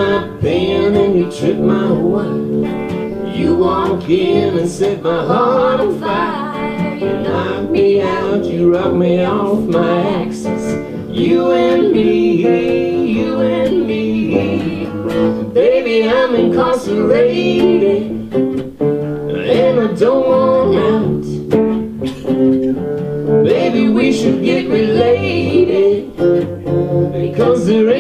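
A live acoustic trio playing a country-folk song: a strummed acoustic guitar and a second guitar, with a woman singing over them.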